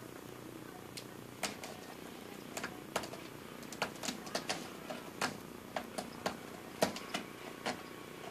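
Cat wand toy, a wooden rod with a strand of beads, clicking and tapping on a tile floor as a kitten bats and pulls at it. Irregular sharp clicks start about a second in, the loudest near the end.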